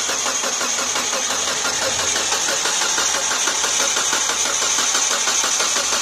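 Mitsubishi Lancer IX engine cranking steadily on its starter without firing, because the ignition coils are unplugged. The cranking drives the power steering pump to push old fluid out through the return hose.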